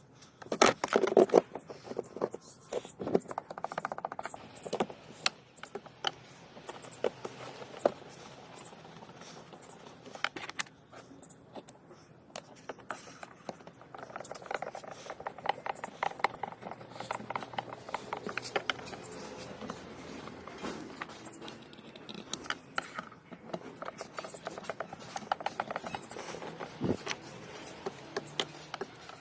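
Hand tools and metal parts clicking, knocking and scraping during work on a washing machine's reducer, with irregular clicks throughout and a loud cluster of knocks about a second in.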